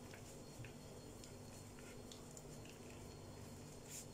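Faint squishing and soft crackling ticks of hands kneading a sticky cornstarch-and-glue dough (cold porcelain clay) in a glass bowl, over a low steady hum.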